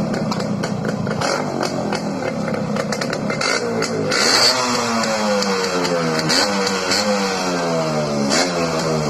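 Yamaha RX 100's two-stroke single-cylinder engine running, then revving up about four seconds in, its pitch climbing and dropping sharply twice as it pulls through the gears.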